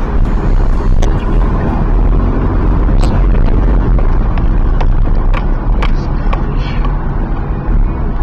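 A car in motion: a steady low rumble of engine and road noise, with scattered sharp clicks.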